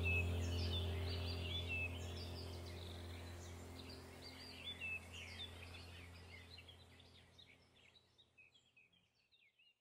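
Background ambient track: birds chirping over a steady low drone, the whole fading out gradually to silence near the end.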